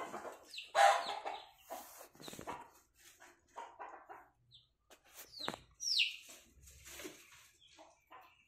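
Young country-chicken chicks giving scattered, falling peeps, with a louder call about a second in and knocks and rustles of handling.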